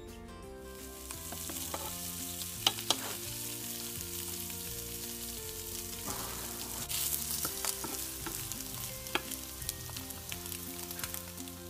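Strips of Spam sizzling in a hot nonstick frying pan, starting about a second in, with a few sharp pops of spitting fat, two close together about three seconds in and one near nine seconds.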